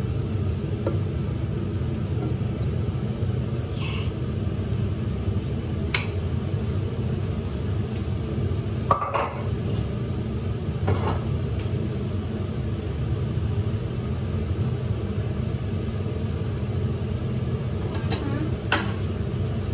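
Stainless steel pots, lids and utensils clinking and knocking now and then over a steady low rumble.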